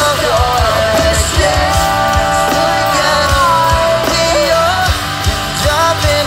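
Live rock band playing loudly: singing over drums, electric bass and guitar.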